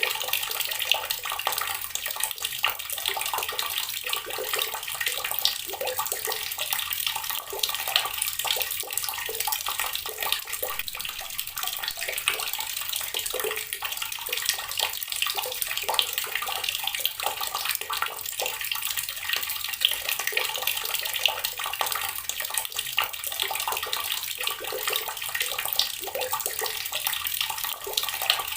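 Water running steadily from a tap and splashing into the basin below, a continuous hiss dotted with small splashes.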